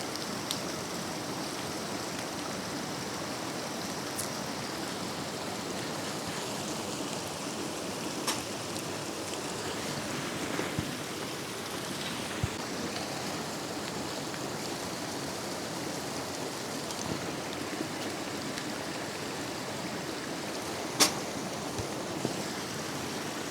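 Steady rushing noise like flowing water, with a few soft clicks and taps scattered through it.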